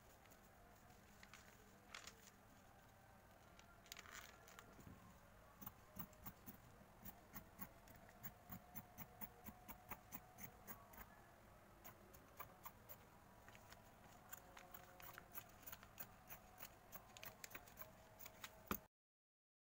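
Fabric shears snipping through fabric along a paper pattern: a quiet series of short cuts, about two a second.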